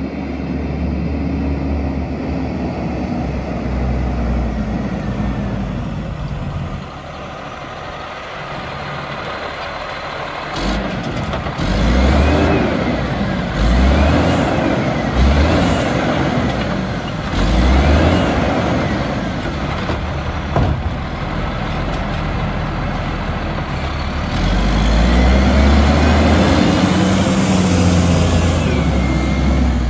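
Automated side-loader garbage truck's diesel engine running, then revving in repeated surges as it drives the lifting arm's hydraulics to pick up curbside carts. A high whine rises and falls with the surges.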